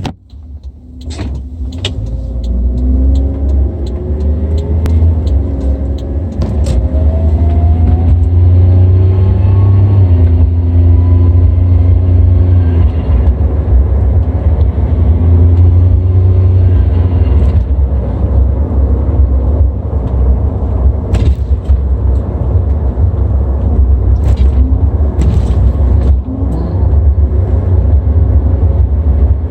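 Suzuki Jimny JA22's turbocharged K6A three-cylinder engine running under a heavy low rumble, its note rising and falling repeatedly. The owner takes these odd sounds for a turbo that may be failing, though it could be something else.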